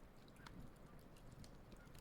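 Wood campfire crackling faintly, with scattered small pops over a low, steady rumble.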